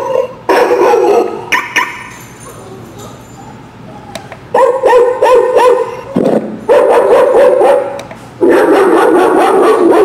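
Recorded dog barking and yelping played through the small speaker of a motion-sensor dog-barking alarm receiver. It comes as a run of short loud barks, stops for about two seconds, then resumes in three bursts of barking to the end.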